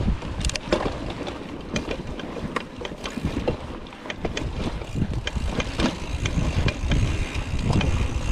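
Hardtail mountain bike ridden over a rough dirt trail: a steady low rumble from the tyres, with irregular clicks and rattles from the chain and frame over bumps.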